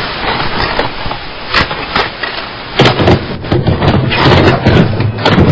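Loud, steady static hiss like that of a blank VHS tape or untuned analogue channel, with scattered crackles. A low hum joins in about three seconds in.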